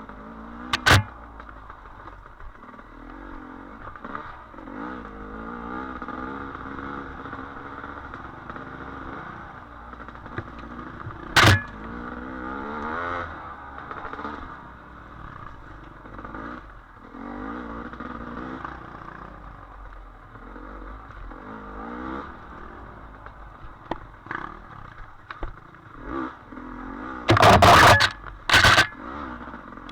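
Dirt bike engine running under a rider on a trail, its pitch rising and falling constantly with the throttle. Sharp knocks and clatter come through a second in, around the middle, and loudest in a cluster near the end.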